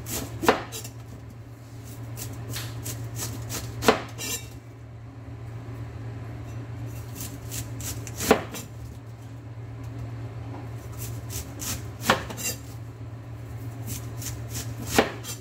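Chinese cleaver slicing cabbage on a wooden cutting board: quick runs of crisp cuts, with a louder knock of the blade on the board every few seconds, over a steady low hum.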